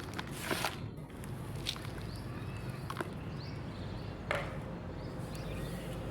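Soft chalk being crumbled and crushed, giving a few separate dry crunches, the strongest about four seconds in.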